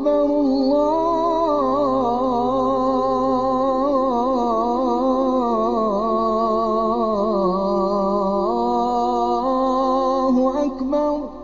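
Solo voice in Islamic chant, singing one long ornamented phrase whose pitch wavers up and down without a break. It dips lower partway through, rises again, and stops near the end.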